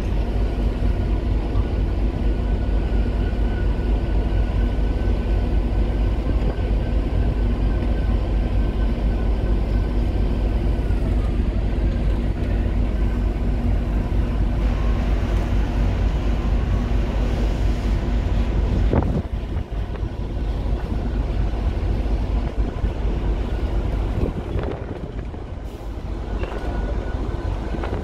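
Wind rumbling on the microphone over a steady mechanical hum and a thin whine that dips in pitch about eleven seconds in. The wind rumble drops away about two-thirds of the way through, just after a single sharp click.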